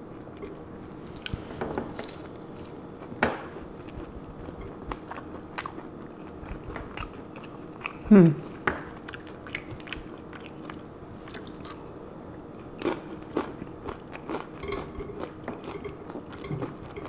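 Close-miked chewing and crunching of a hard-shell taco, with scattered small clicks.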